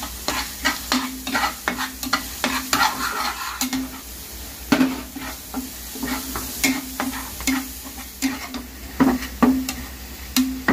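Minced garlic sizzling in oil in a non-stick frying pan while a metal spatula stirs it, scraping and tapping against the pan many times at an uneven pace. The garlic is being fried until golden and fragrant.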